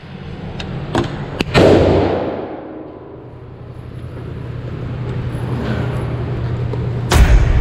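A single gunshot at the indoor range about a second and a half in, loud and dying away over about a second, over a steady low hum. Near the end a loud rough noise starts.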